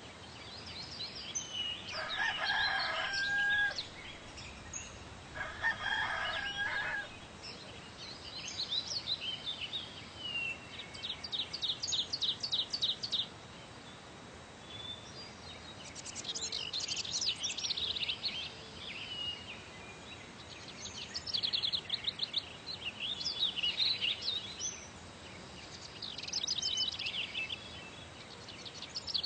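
A rooster crowing twice in the first several seconds, with songbirds chirping and trilling throughout in quick repeated phrases.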